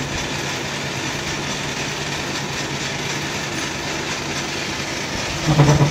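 Workshop machinery running: a steady mechanical hum with hiss, with a brief louder sound near the end.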